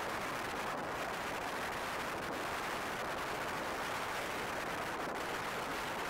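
Steady rushing noise of wind in a snowstorm, an even hiss with no separate events.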